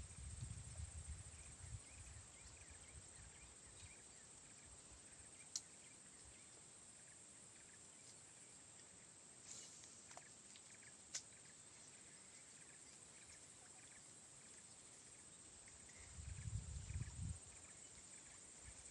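Near silence: faint outdoor ambience with a steady high hiss. There are low rumbles at the start and again near the end, and two small clicks in the middle.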